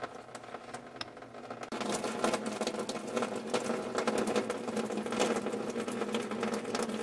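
Water draining from a car radiator's drain port, the stream splashing and pattering steadily into a plastic drain pan. It gets suddenly louder about two seconds in.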